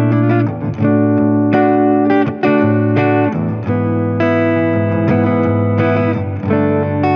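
Fender American Professional Deluxe Telecaster with ShawBucker humbucking pickups, played as an electric guitar through effects. Notes and chords are picked and left to sustain, a new one struck every half second to a second, over a backing track with a steady bass line.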